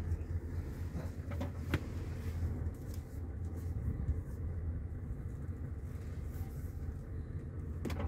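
Scania truck's diesel engine running steadily at low revs, heard from inside the cab, with a few short clicks about a second and a half in.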